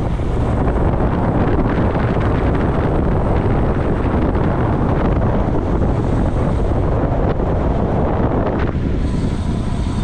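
Heavy wind buffeting on an action camera's microphone on a road bike descending at speed: a loud, steady rushing roar, thinning a little in its upper part about nine seconds in.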